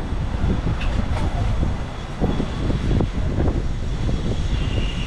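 Low rumble of vehicles on a busy market street, with scattered knocks and clatter.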